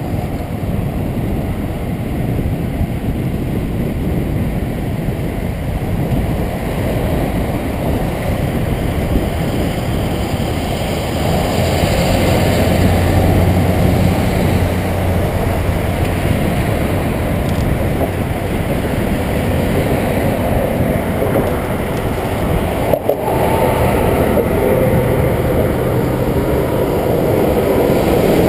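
Steady wind rushing over the microphone of a GoPro on a moving road bike, with motor traffic going by and a low vehicle hum swelling partway through.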